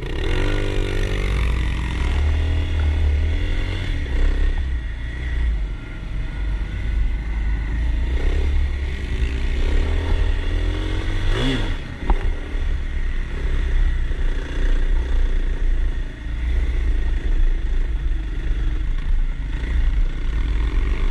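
Kawasaki KLX 300 single-cylinder four-stroke dirt bike riding on a dirt trail. Its revs climb as it pulls away at the start, then it runs on with another quick rev about halfway through, over wind rush and the clatter of the bike on rough ground.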